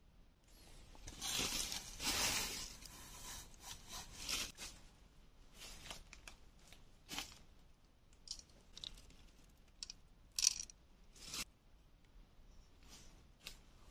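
Dry leaf litter and twigs rustling and crunching. There is a dense stretch of rustling in the first few seconds, then scattered short, sharp crackles and snaps.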